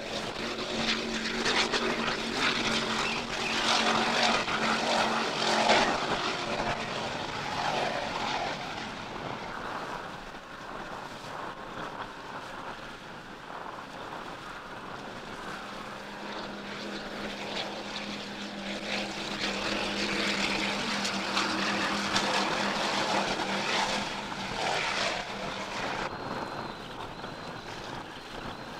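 Offshore racing catamaran's engines droning at full speed over rough water. The drone swells and fades twice as the boat runs past, with a rushing hiss of spray and wind.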